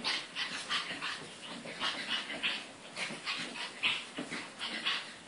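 A dog making short, breathy huffs in a quick, uneven run, about three a second.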